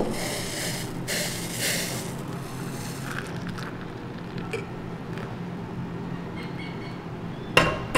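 Heated milk poured into a coffee cup, a splashing hiss for about the first two seconds, then a low steady hum and one sharp clink near the end.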